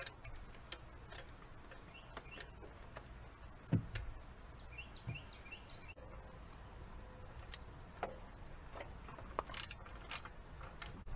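Sparse light clicks and taps of plastic clips, hoses and wiring harness being handled and fitted in a truck's engine bay, with one duller knock a little under four seconds in.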